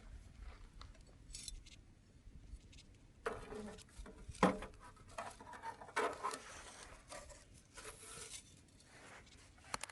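Wood fire crackling, with irregular sharp pops and knocks; the loudest comes about halfway through.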